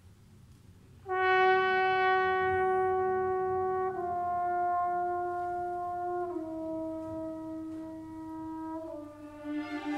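Trombone playing a slow line of four long held notes, each a step lower than the last, entering about a second in after a near-quiet pause.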